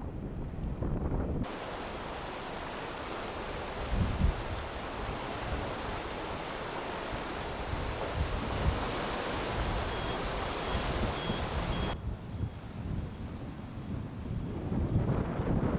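Strong wind buffeting the microphone over a rough sea, with a broad hiss of surf and breaking waves that starts abruptly about a second and a half in and cuts off near the three-quarter mark.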